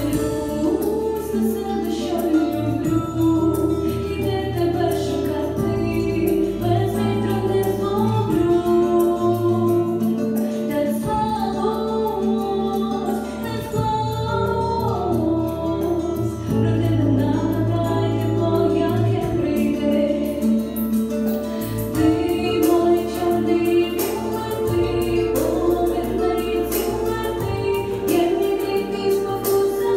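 A young woman singing a song solo into a microphone over an instrumental backing with a steady bass line.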